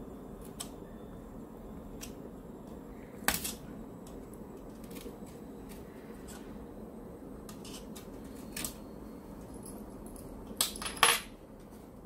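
Sharp clicks and snaps as a precision screwdriver pries off the bottom cover of a Dell XPS 13 laptop and its plastic catches pop free. There is one sharp snap about three seconds in, a few fainter ticks, and a louder double snap near the end.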